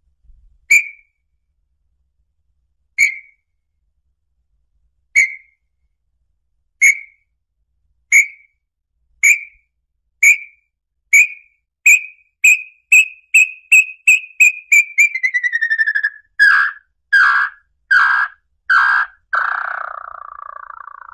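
Small-billed tinamou song: clear whistled notes, at first about two seconds apart, that speed up until they run together and fall slightly in pitch. It ends in a few louder, rougher notes and a last drawn-out rough note near the end.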